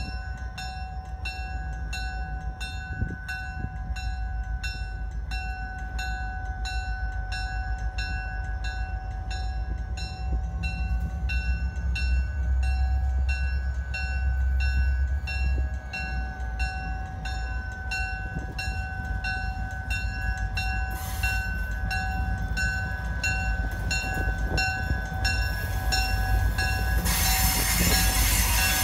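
A railroad grade-crossing bell clangs at a steady pace of about two to three strokes a second while a Wheeling & Lake Erie freight train rumbles past. A broad hiss rises near the end.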